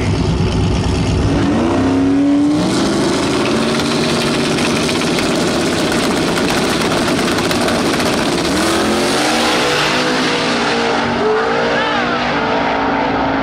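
Loud drag-racing car engines running and revving hard, with the pitch of the revs climbing several times as the cars accelerate down the strip.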